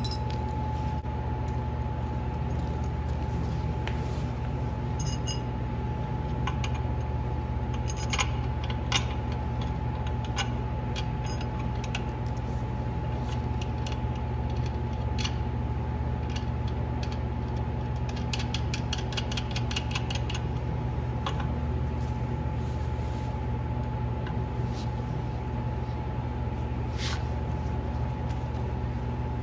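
Steady mechanical hum with scattered metallic clicks and clinks of hand tools on transmission parts, including a quick, evenly spaced run of clicks like a ratchet wrench about two-thirds of the way through.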